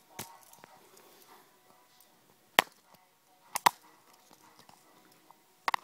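A handful of sharp clicks and knocks of hard objects being handled while a tool is picked up. The loudest comes about two and a half seconds in, then a quick double knock a second later and another double click near the end.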